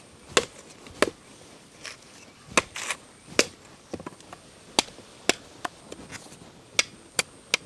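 Curved billhook knife chopping the fibrous green husk off a tender coconut: about a dozen sharp, separate chops at an uneven pace.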